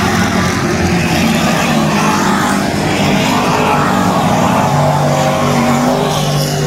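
A field of dirt-track race cars running hard around the oval, a steady loud mass of engine noise whose pitch rises and falls as the cars pass.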